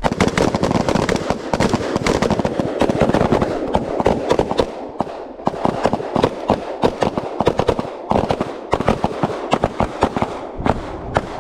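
A firing line of rifles and pistols shooting at once: rapid, overlapping gunshots, dense for the first several seconds and thinning to scattered separate shots after about eight seconds.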